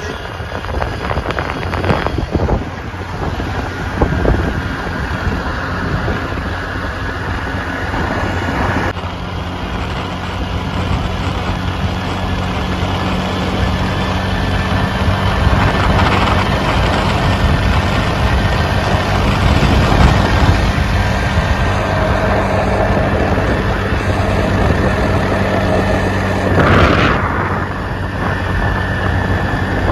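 Vehicle running at road speed with a steady engine hum under wind rushing over the microphone, and a brief louder rush near the end.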